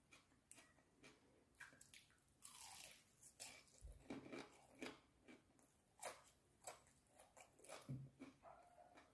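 Soft, close-miked chewing of crispy fried chicken: irregular crunches and crackles of the breading, with some wet mouth sounds.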